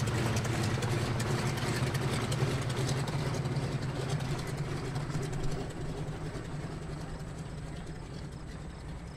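A 1928 Ford 5-AT-B Tri-Motor's three Pratt & Whitney Wasp radial engines running at low power as the plane taxis away, the sound fading gradually.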